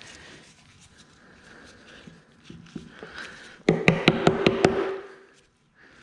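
Copper wire being worked around a metal ring mandrel. Faint handling noise comes first, then, a little past the middle, a quick run of about eight sharp metallic clinks with a short ringing tone.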